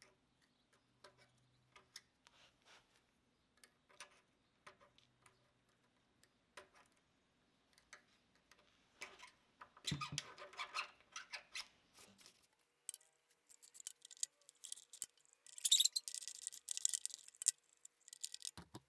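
A small metal pick scraping and ticking inside a threaded port in an old compressor tank, clearing out caked paint and grime, with a busier stretch of scraping about halfway through. Near the end come louder, sharper metallic scrapes and clinks as a wrench works a bolt.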